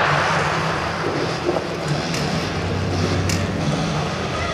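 Stadium crowd noise and cheering at the start of a hurdles race, with the echo of the starting gun dying away in the first second. A low steady hum runs underneath, and a few faint clicks come from about a second and a half in.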